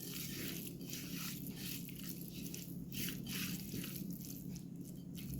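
Hands mixing raw boneless chicken pieces with salt and black pepper: quiet, irregular soft squishing of the meat being worked.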